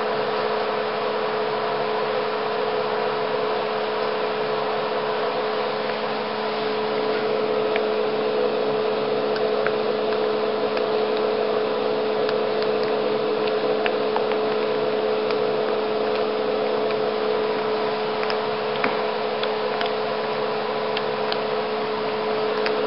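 Caleva Mini-Mixer bench-top laboratory mixer running steadily as its blades mix viscous shower cream: a constant motor hum with a steady mid-pitched whine and faint scattered ticks.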